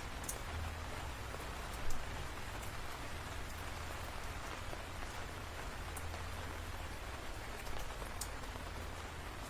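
Steady rain falling, with a few sharp drop ticks and one brief louder tap about two seconds in.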